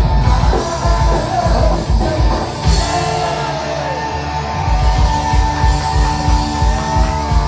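Live punk rock band playing loud, with distorted guitar, bass, pounding drums and shouted vocals, picked up by a phone's microphone in the crowd. About three seconds in, the drums drop back under a held ringing chord, then pound in again about two seconds later.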